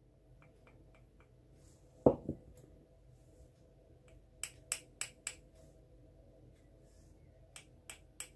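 Small taps and clicks of a dotting tool against a glass and a plastic palette plate, with one dull knock about two seconds in and a quick run of sharp clicks past the middle.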